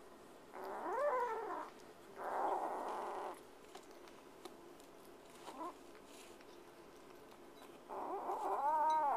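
Kitten growling over its food bowl, guarding its food from a hand reaching in. There is a wavering, pitched growl about half a second in, a rougher growl right after it, a short one in the middle, and a longer wavering growl near the end.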